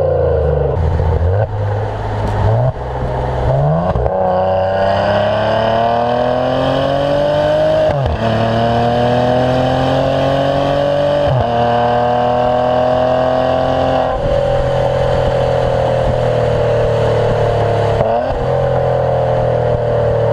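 Stock exhaust of a 2015 Maserati Ghibli accelerating. The engine note climbs steadily and drops sharply at each of three upshifts in the middle, then settles into a steady, slowly falling drone with one more brief dip near the end.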